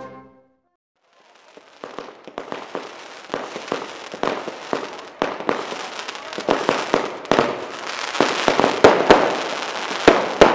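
Fireworks going off, crackling densely with many sharp bangs. They start about a second in and build up, denser and louder toward the end.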